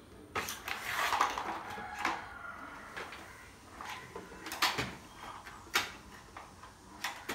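Hard plastic toy kitchen pieces and the plastic case clicking and knocking together as they are handled, a few sharp knocks spread apart, with a stretch of rustling early on.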